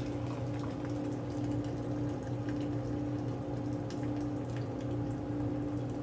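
Steady machine hum of kitchen equipment, with faint scattered drips and ticks of liquid, typical of stock draining through a strainer.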